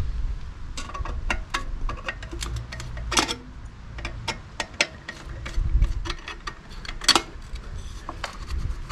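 Irregular metallic clicks and taps as a heat shield is slackened with a hand tool and worked loose on a stainless motorcycle silencer, with sharper knocks about three seconds in and again about seven seconds in.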